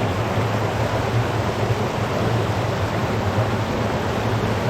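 Running spring water rushing steadily, a constant even noise with a low rumble underneath.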